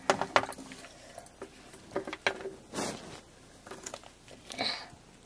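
Scattered light taps, knocks and rustles of small plastic Littlest Pet Shop figures being handled and moved across a tabletop.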